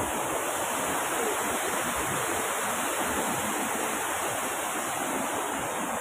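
Steady rush of falling water from an artificial waterfall.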